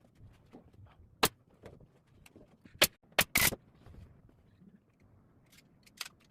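Upholstery staple gun firing staples into the bench's new leather cover: five sharp shots at uneven intervals, two of them in quick succession about three seconds in.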